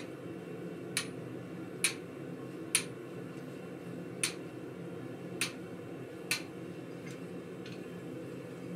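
Hammer blows on a blacksmith's chisel splitting a red-hot steel bar: six sharp strikes about a second apart, with two fainter taps near the end, over a steady low hum.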